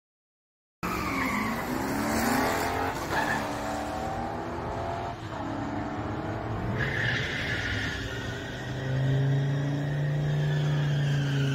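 Two muscle cars making a full-throttle drag-strip run, their engines revving up through the gears: the pitch climbs and drops back with each upshift in the first few seconds, then holds a steady, loud note near the end.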